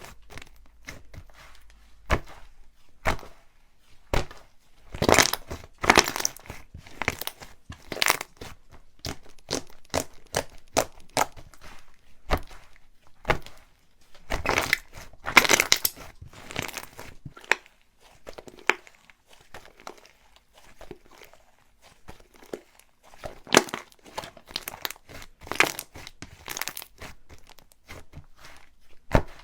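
Slime being squished, pressed and stretched by hand, giving irregular bursts of crackling and popping with short pauses between.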